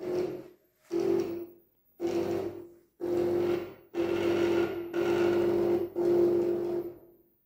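Motors of a motorised pan-tilt antenna tracker turning the dish and Yagi antenna in steps. There are seven whirring bursts about a second apart, each a steady hum. The first bursts are short, and the later ones run almost back to back.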